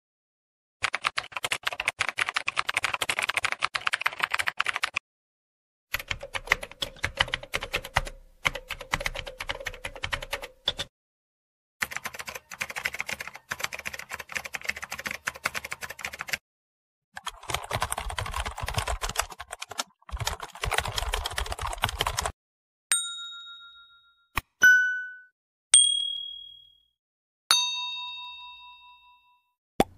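Four separate bursts of rapid keyboard typing, each a few seconds long with brief pauses between them, followed by about five short, bright dings at different pitches, each ringing out and fading.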